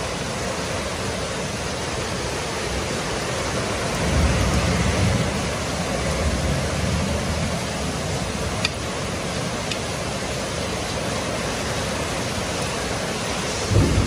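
Steady rushing hiss of background noise, with a louder low rumble about four to six seconds in and two faint light clicks a second apart near the middle.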